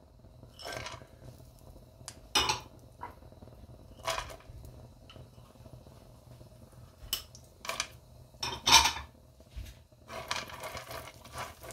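Chopped almonds and pistachios tipped into a nonstick frying pan of melted butter, with about six separate sharp clinks against the pan. About ten seconds in, a spatula starts scraping and stirring the nuts in the pan.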